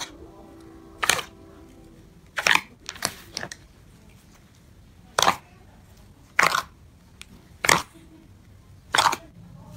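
Clear yellow slime being stretched and pressed by hand, giving a series of short, sharp crackling pops roughly once a second as air pockets burst.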